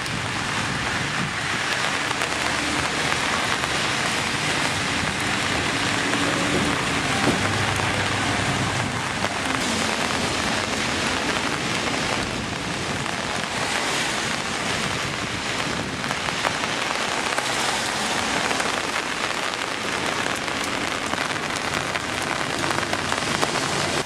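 Steady rain falling on a wet street and pavement, an even hiss.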